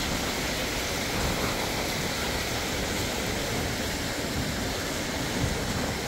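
Water pouring from a pipe and over small spillways into concrete fish ponds, a steady splashing rush.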